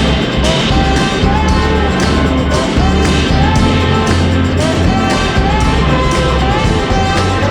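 Background music: a song with a sung or melodic line over a steady bass rhythm.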